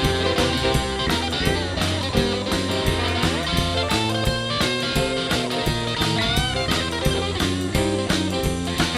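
Instrumental break of a rock-and-roll boogie-woogie song: a guitar solo with bending notes over a steady drum beat and bass.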